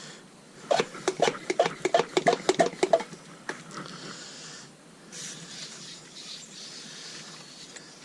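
Aerosol can of brake cleaner shaken hard, its mixing ball rattling in about a dozen quick strokes, then a faint steady spray hiss from about five seconds in.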